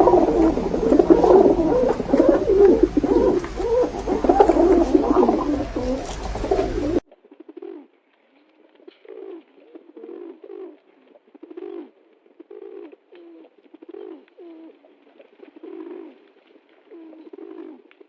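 Pigeons cooing: a loud, dense run of many overlapping coos over a low hum, which cuts off suddenly about seven seconds in to fainter, separate coos about once a second.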